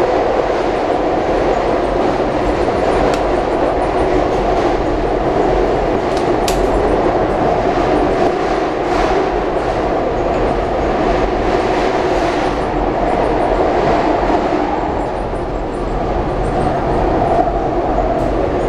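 Steady running noise heard inside a SEPTA Market-Frankford Line train car in motion: the rumble of wheels on rails, with faint intermittent wheel clicks and one brief sharp high-pitched squeak about six seconds in.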